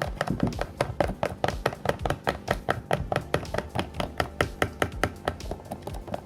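Thick, sticky glue-and-shampoo slime being stirred fast with a paint brush: a rapid run of wet clicks and taps, about five or six a second.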